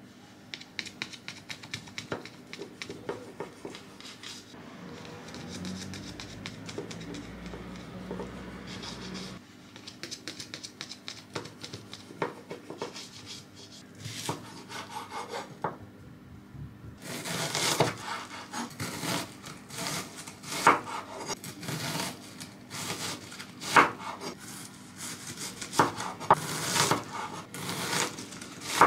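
A kitchen knife slicing bacon with soft scraping strokes, then cutting through an onion on a wooden chopping board. From about two-thirds of the way in, a quick run of sharp knocks comes as the blade dices the onion against the board.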